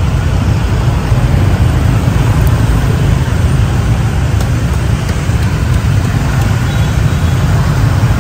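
Road traffic noise, a steady dense rumble heavy in the low end.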